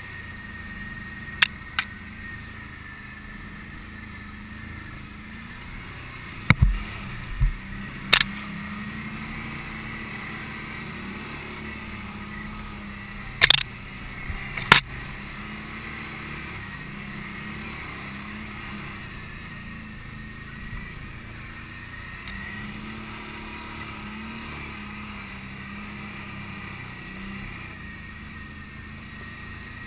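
Can-Am Outlander ATV engine running at low trail speed, its pitch rising and falling slightly as the throttle changes. A handful of short, sharp knocks sound over it, the loudest about halfway through.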